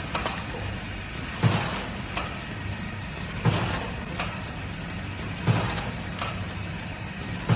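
ATM-420D automatic vertical powder sachet packing machine with an auger filler running: a steady hum, with a loud clack and short hiss repeating about every two seconds, each followed by a lighter click, one cycle per sachet.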